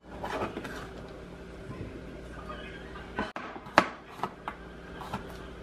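Chef's knife slicing through cucumber onto a plastic cutting board: a handful of sharp knocks on the board in the second half, over a steady low hum.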